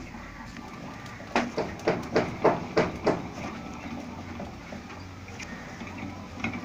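Hand spinning the compressor shaft of a homemade jet engine: a quick run of light clicks, about five a second, starting about a second and a half in and stopping after under two seconds, then only a faint hiss.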